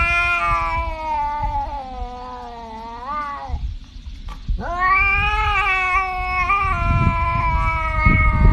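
Tabby cat yowling in two long drawn-out calls, the first ending in a short upward bend, the second starting about four and a half seconds in.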